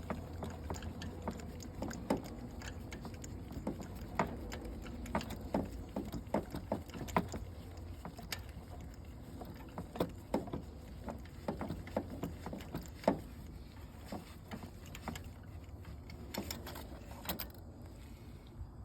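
Irregular clicks and light metal taps of hand tools and parts being handled as a spark plug is unscrewed and drawn out of the engine, over a steady low hum.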